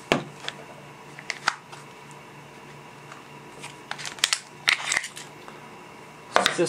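Metal clicks and rattles of a WG Wingun P230 Phantom CO2 pistol being taken apart by hand, its metal slide worked off the frame. Sharp irregular clicks, several close together about four to five seconds in, over a faint steady hum.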